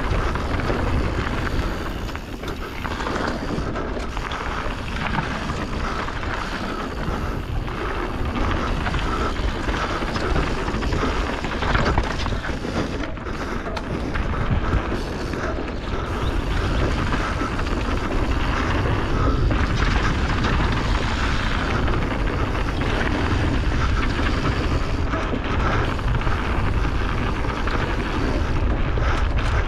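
Canyon Torque mountain bike descending a dirt and loose-gravel trail, its tyres rolling and crunching over the surface. Wind rushes steadily over the GoPro's microphone.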